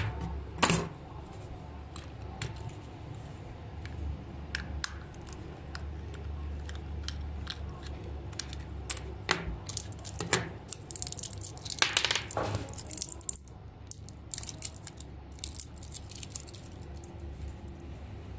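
Small clicks, taps and rattles of hard plastic being handled: a toy praying mantis and its black plastic battery box picked up, turned over and set down on a work mat. A longer scraping rustle comes about twelve seconds in.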